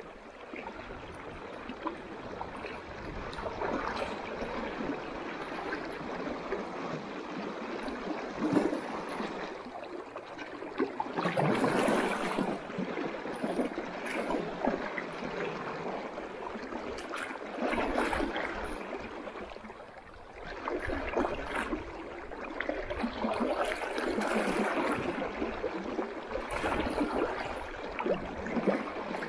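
River water rushing and splashing, swelling louder and easing off every few seconds.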